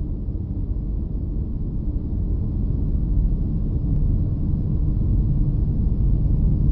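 Deep rumbling intro sound effect that slowly swells in loudness, with its weight low down and no tune or beat.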